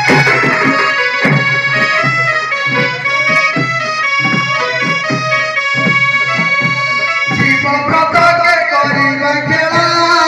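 Live Odia Danda Nacha folk music: a reed instrument holds a steady, droning melody over quick hand-drum beats.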